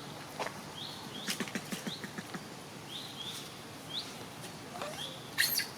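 Outdoor forest ambience: a short rising chirp from a small animal repeats about once a second. A patch of light clicking and rustling sounds in the middle, and a brief sharp crackling burst near the end is the loudest sound.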